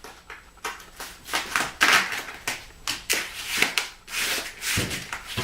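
Irregular rustling, crinkling and scraping as a peel-and-stick foam edge strip is handled and pressed into place, its adhesive backing being peeled.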